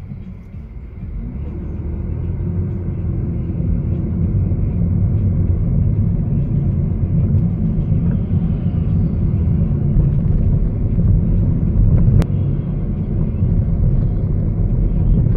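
Car engine and road rumble heard inside the cabin while driving, growing louder over the first few seconds as the car gets moving and then holding steady. A single sharp click comes about twelve seconds in.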